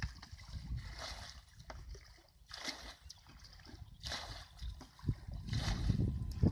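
Water splashing and sloshing in about four short bursts, spaced a second or so apart.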